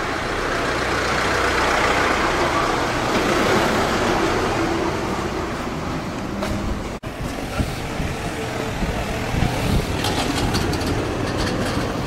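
Cars passing close by, their engine and tyre noise swelling over the first few seconds and then easing off. After a brief dropout about seven seconds in, steady street traffic noise follows, with low thumps and a few clicks.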